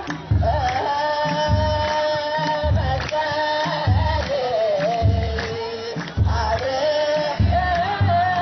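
Ethiopian Orthodox liturgical chant: a group of voices singing long held notes together over the steady deep beat of a kebero drum.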